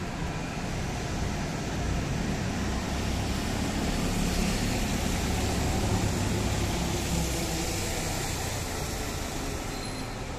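Street traffic: vehicle engines and tyres passing over a steady hiss, swelling around the middle and easing off toward the end.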